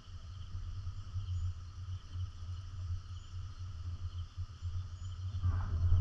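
Steady chorus of insects chirping in the grass and trees, a continuous high trill with faint repeating chirps, over a low steady rumble; a louder sound starts to rise near the end.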